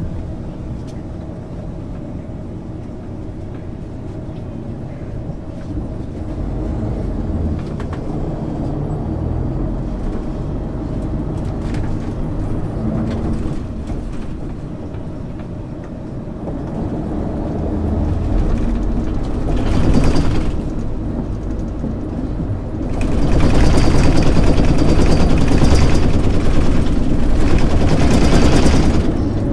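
A 1999 MAN ÜL 353 bus on the move: its engine running steadily under road and drive noise. There is a brief swell about two-thirds in. Near the end it turns much louder and rushing for several seconds.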